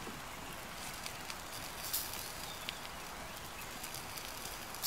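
Fish grilling over a charcoal fire: a few scattered crackles and pops over a steady hiss.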